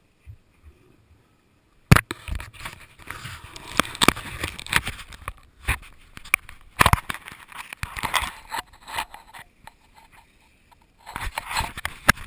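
Gloved hand handling an action camera: rubbing, scraping and knocks on the camera housing right at the microphone. It begins with a sharp knock about two seconds in, goes on in a dense run of scrapes, and after a lull comes back in a second burst near the end.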